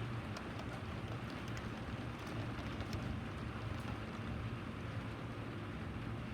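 Steady rain falling, an even hiss with scattered sharp drop ticks, over a steady low rumble.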